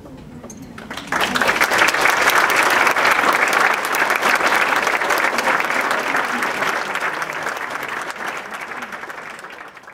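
Audience applauding: the clapping breaks out sharply about a second in and slowly dies away near the end.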